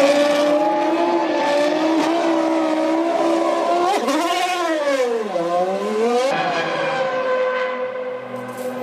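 1998 Formula One cars' V10 engines running at high revs, a steady high-pitched engine note. About four seconds in, one engine's pitch swings up, drops steeply and climbs again over about two seconds.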